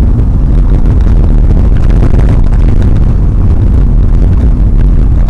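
FPV racing quadcopter in fast flight, heard through its onboard microphone: a loud, steady rumble of wind buffeting and motor noise.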